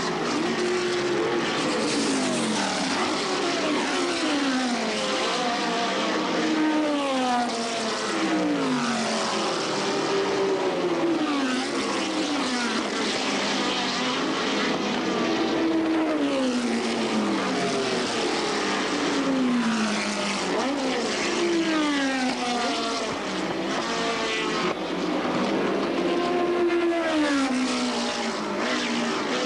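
Historic Can-Am-era sports racing cars passing at speed one after another, about every two to five seconds. Each engine note drops in pitch as the car goes by, and the passes overlap so engine sound never stops.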